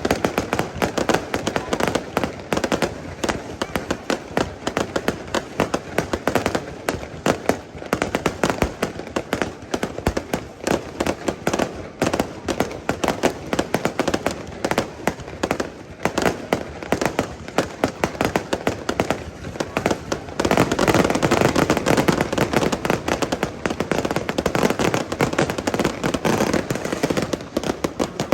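Aerial fireworks bursting in quick succession, many sharp bangs and crackles a second, growing denser and louder about two-thirds of the way through.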